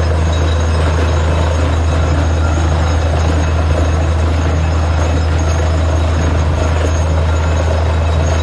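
Truck-mounted borewell drilling rig running steadily and loudly, a constant deep hum under a dense mechanical noise.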